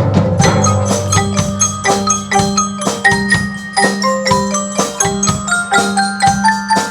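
Mallet percussion, xylophone or marimba type, playing a quick melody of struck, ringing notes, about three or four a second, over a sustained low bass.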